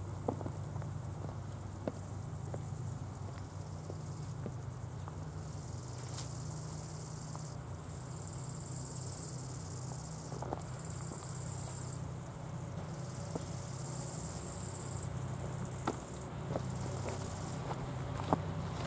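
Crickets chirping in high buzzing runs that start and stop every few seconds, over a steady low hum with a few faint clicks.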